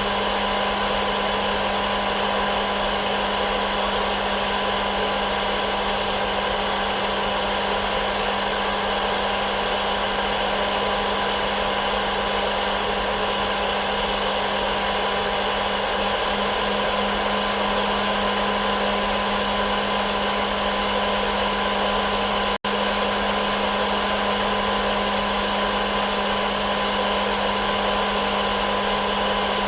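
Hair dryer running steadily as a white-noise track: a constant blowing hiss with a steady motor hum and whine, which drops out for an instant about two-thirds of the way through.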